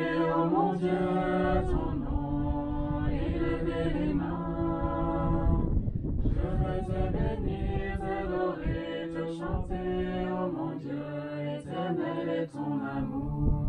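A small group of voices singing a grace together, a slow chanted blessing over the food, in sung phrases with a brief break about halfway through.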